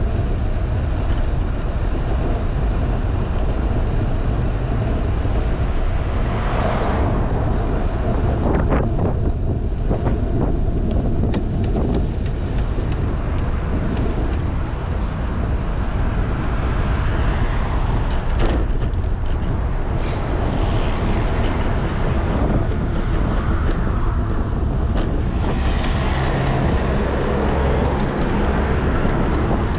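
Wind buffeting a bicycle-mounted GoPro's microphone while riding, a steady low rumble mixed with tyre and road noise, with a few short knocks near the middle.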